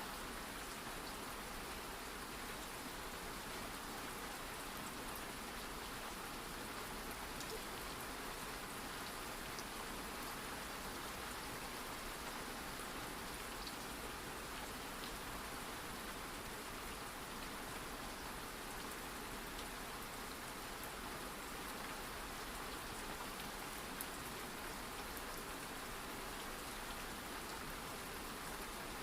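Steady rain: an even, unbroken hiss with a faint drop tick here and there.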